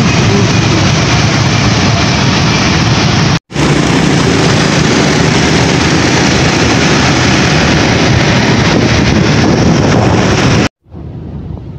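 Loud, steady road noise from riding on a motorbike through traffic: engine and wind rushing over the microphone. It cuts out for an instant about three and a half seconds in. Near the end it drops to a much quieter rush of wind.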